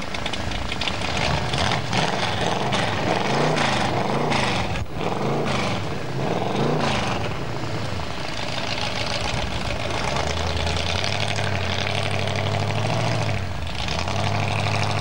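Formula off-road buggy engine revving up and down several times in quick succession, then holding a steady low note.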